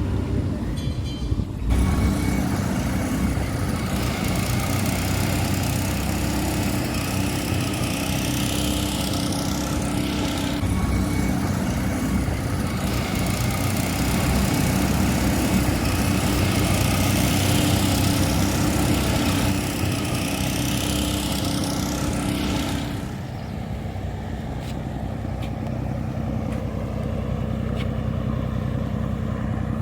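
Engine running with a steady drone and rushing noise; about 23 seconds in it drops a little in level and settles to a steadier hum.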